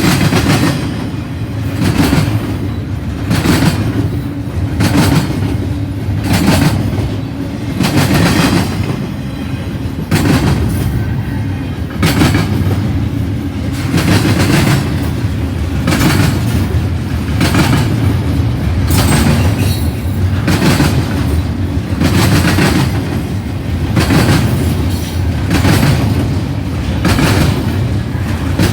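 Cars of a CN intermodal freight train rolling past at speed: a steady rumble of wheels on rail with a regular clickety-clack as wheel sets cross rail joints, about one to two clicks a second.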